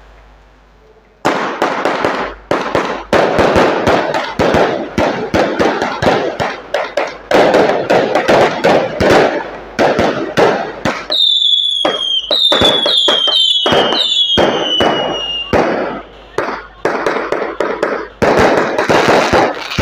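A dense barrage of firecrackers and fireworks cracking and popping in rapid succession, starting abruptly about a second in. Midway, several whistles falling in pitch overlap the crackling for a few seconds.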